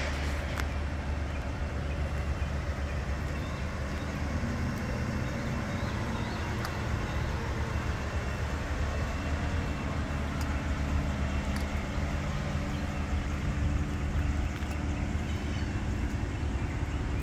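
A steady low mechanical drone at a constant pitch and level, with a few faint light clicks over it.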